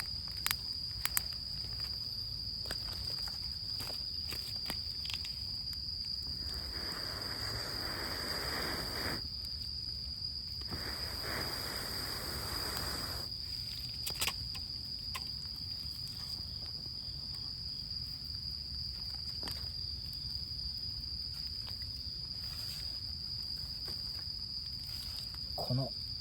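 Campfire of rain-soaked wood crackling with scattered sharp pops, with two stretches of hissing a couple of seconds each. A steady high insect trill runs underneath.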